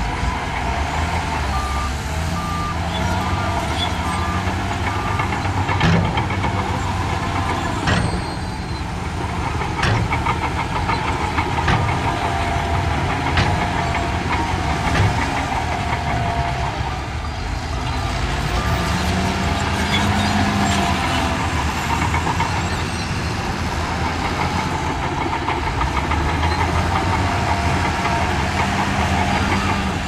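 Heavy diesel earthmoving machinery at work, a bulldozer and dump trucks: engines running and revving up and down, a reversing alarm beeping several times in the first few seconds, and sharp clanks now and then.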